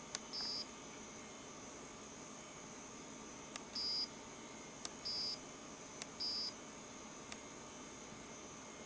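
Short high electronic beeps from a VFD digital clock kit's buzzer, four of them, each coming just after the sharp click of a push-button as the clock's buttons are pressed to set it. A fifth button click near the end gets no beep.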